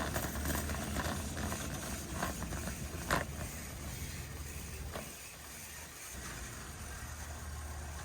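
Warehouse store ambience: a steady low hum with an even background hiss, broken by a few short clicks and rattles, the sharpest about three seconds in. It grows a little quieter about five seconds in.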